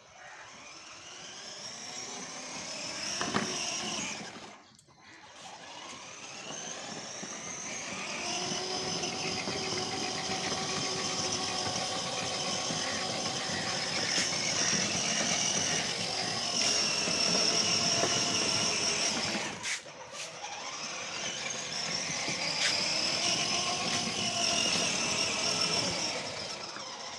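Battery-powered ride-on toy car driving: a steady whine from its small electric drive motors and plastic gearboxes, breaking off briefly twice, about five and about twenty seconds in.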